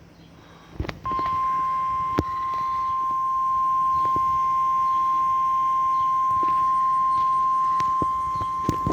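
NOAA Weather Radio 1050 Hz warning alarm tone: one steady, unwavering high tone starting about a second in, the alert signal that sets off tone-activated weather radio receivers. A few faint clicks from the radio reception sound over it.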